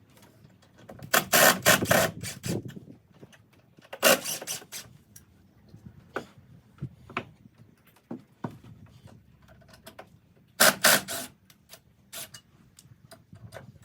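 Woodworking handling noise: three short bursts of quick knocks and scrapes with scattered single clicks and quiet gaps between, from timber being worked between hand-saw cuts.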